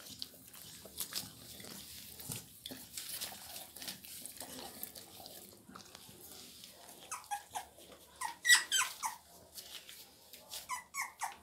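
Very young Labrador Retriever puppies squeaking and whimpering in short, high-pitched cries, several in quick succession from about seven seconds in. Before that, soft rustling and scratching as they crawl on a blanket.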